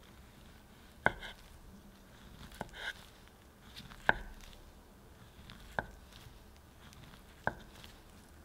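Kitchen knife slicing a peeled banana on a wooden cutting board: five sharp taps as the blade goes through the fruit and hits the board, about one every one and a half seconds.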